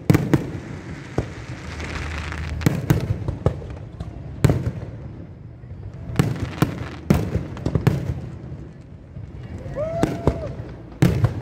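Fireworks going off: an irregular series of about a dozen sharp bangs, some in quick pairs, with a stretch of hissing crackle about two seconds in.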